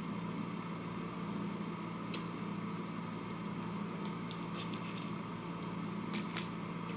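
Wet chewing and mouth sounds of someone eating, with a few short smacks and clicks, over a steady low hum.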